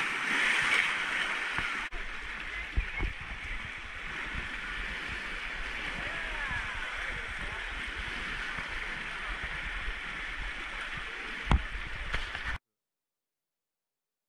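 Small waves washing and splashing against a rock ledge at the shoreline, a steady wash of water with a few short low bumps. It cuts off abruptly near the end.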